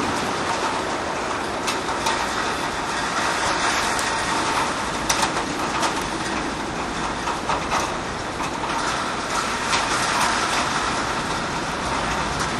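Windstorm with heavy rain: a steady rushing noise with many irregular clicks and rattles.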